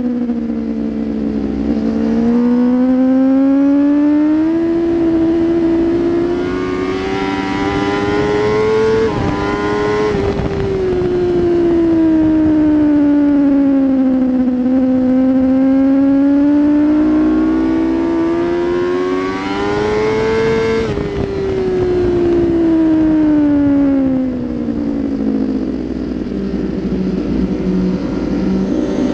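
Onboard sound of a 2016 Kawasaki ZX-10R's inline-four engine lapping a track, heard from the handlebar area with wind rushing past. The revs climb and fall several times through the corners, with a quick dip about nine seconds in as it shifts up a gear and a sharp drop about twenty-one seconds in as the revs fall away.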